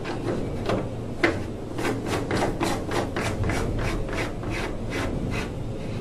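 Air intake coupling being fitted into the side of a Ruud 90%+ gas furnace's sheet-metal cabinet: a few knocks and a sharp click about a second in, then a quick run of rubbing strokes, about four a second, lasting nearly four seconds.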